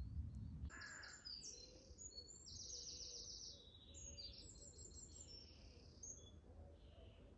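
Faint birdsong: small birds singing high, quickly repeated chirps and trills, with a lower call about a second in. The singing fades out about six seconds in.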